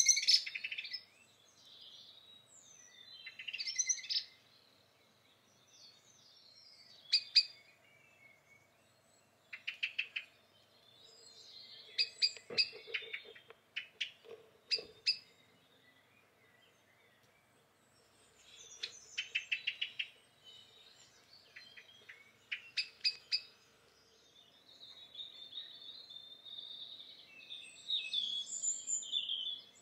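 Dawn chorus birdsong: a blackbird singing, then a song thrush's phrases of quickly repeated notes, with a wren's fast high trill near the end. The phrases come one after another with short pauses between them.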